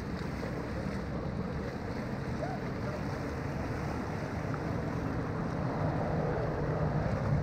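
Steady outdoor noise: wind on the microphone with a low rumble of road traffic, growing a little louder near the end.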